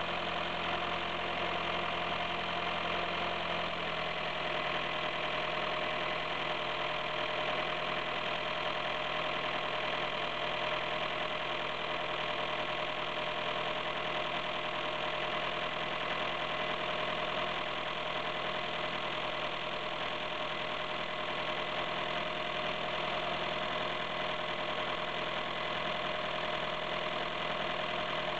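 1988 Dodge 2.2-litre turbocharged four-cylinder engine idling steadily at operating temperature.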